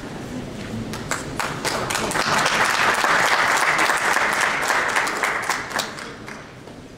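Audience applauding: a few scattered claps at first, swelling into full applause about two seconds in, then dying away shortly before the end.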